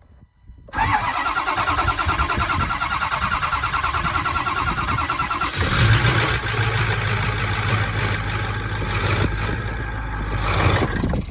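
Ford 6.4 L Power Stroke V8 diesel cranking on the starter for about five seconds, then catching and running for about five seconds before it dies near the end. It stalls because air is still in the fuel system.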